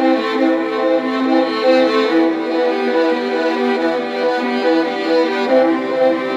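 Background music led by bowed strings, a violin melody moving in steady notes.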